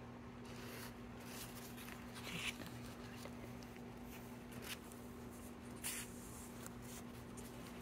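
Soft rustling of paper towel being handled and pressed, about three brief rustles, over a steady low hum.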